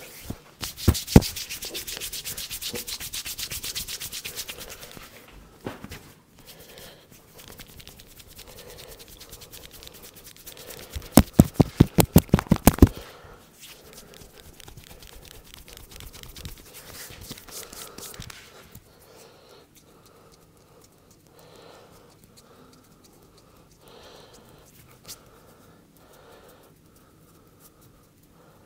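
Hands rubbing and scratching briskly through hair and scalp in a head massage. Fainter intermittent rubbing follows, broken about eleven seconds in by a quick run of loud, sharp taps lasting about two seconds.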